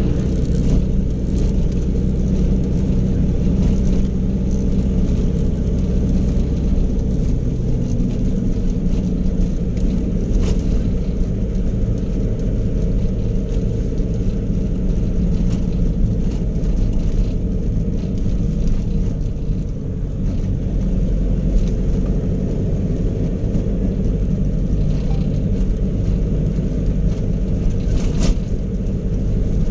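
Car engine and tyre noise heard from inside the cabin while driving at a steady speed: a continuous low rumble with a steady engine hum.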